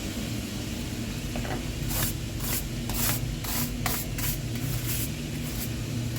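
About nine short hissing bursts from a spray can, in quick succession, while a boiler is being cleaned of dust and muck. A steady low hum of running plant-room equipment continues underneath.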